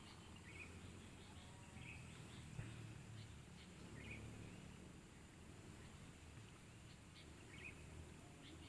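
Near silence: quiet rice-field ambience with a few faint, short chirps scattered through it.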